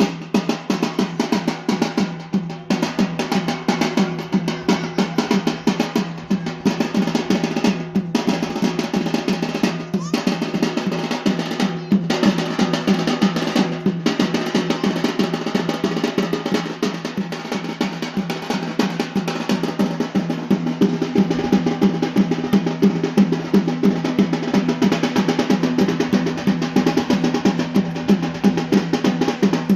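Traditional Yemeni bara' dance drums playing a fast, dense beat without pause.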